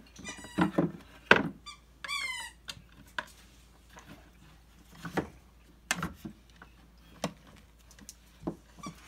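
Wooden chair parts squeaking and knocking as a long bolt is worked through tight holes in the leg and seat assembly. A few short squeaks with falling pitch come in the first three seconds, with scattered light knocks throughout.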